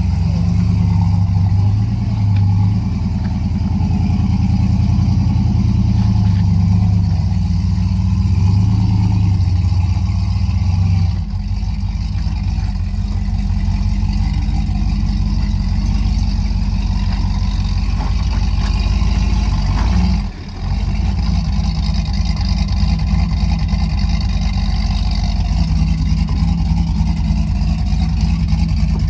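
Nissan Xterra's engine running steadily at low speed, its note changing about eleven seconds in and dipping briefly near twenty seconds.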